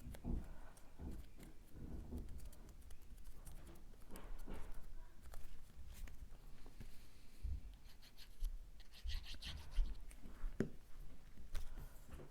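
Cardstock pieces being handled and pressed together on a work surface: irregular light rubbing, scratching and soft taps, with a brief brighter scratch about nine seconds in.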